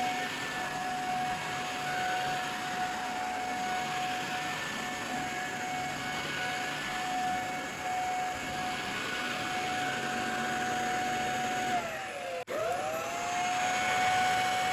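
Dyson Ball Multi Floor 2 upright vacuum running with a steady high whine over a rush of air. Near the end the whine drops sharply in pitch and cuts out for an instant, then comes straight back up.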